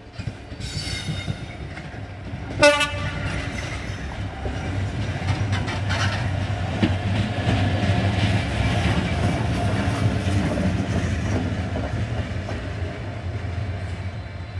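Class 66 diesel locomotive with an EMD two-stroke V12 engine, sounding a short, loud horn toot about two and a half seconds in, then running past close by. The engine's low, steady note and its wheels on the rails are loudest midway and ease off as it pulls away.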